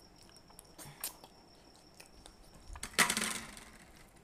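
Mouth sounds of eating ripe mango by hand: faint wet clicks and chewing, then one sudden loud wet slurp about three seconds in.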